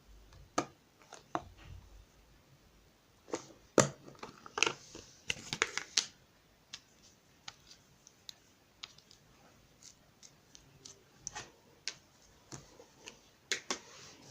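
Two-layer slime being handled, giving irregular sharp clicks and small crackly pops, thickest a third of the way in and again near the end.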